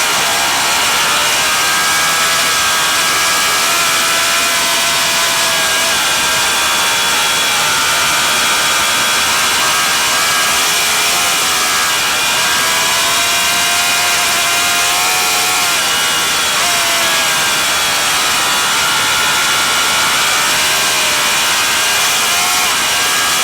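Vintage racing motorcycle engine at full race pace, its pitch climbing and falling again and again as it accelerates, shifts and slows for corners, over a steady rush of wind noise.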